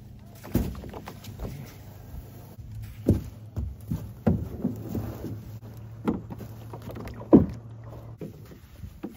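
Gear being set into a beached canoe and someone climbing aboard: irregular knocks and thumps against the canoe's hull, the loudest about seven seconds in. A faint low steady hum runs underneath and stops near the end.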